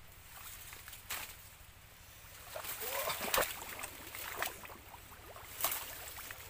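A wooden digging stick jabbed into wet soil and leaf litter: about three strikes a couple of seconds apart, with crackling and rustling of dead leaves and a little wet sloshing.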